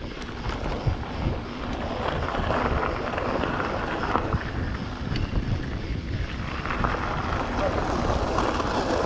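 Wind rushing over the microphone of a moving mountain-bike rider, steady throughout, with the bike's tyres rolling over dirt and gravel underneath as a low rumble.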